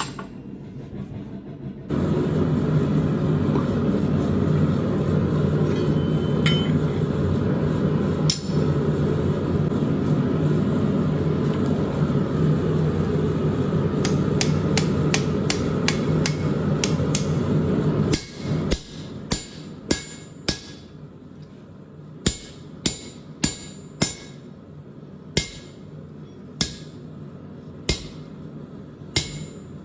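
A steady loud running noise, typical of a forge, for about sixteen seconds; then a hammer striking half-inch square steel bar on an anvil, about one blow a second, each with a short metallic ring.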